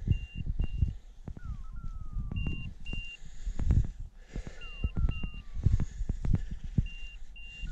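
An electronic beeper sounding a repeating pattern: pairs of short high beeps about every two seconds, with a falling tone every few seconds. Uneven low buffeting on the microphone runs under it and is louder than the beeps.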